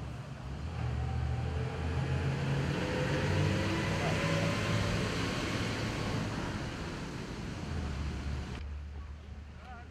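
A motor passing by: a low engine rumble and hiss that swell to a peak about three seconds in and then fade, the hiss cutting off abruptly near the end.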